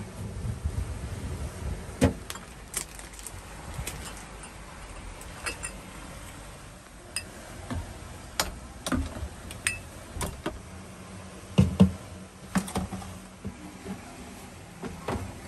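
A cloth rubbing the fridge's plastic interior, then glass bottles clinking and knocking into the plastic door rack and cartons set down on the wire shelves: scattered sharp knocks and clicks, the loudest a cluster about three-quarters of the way through.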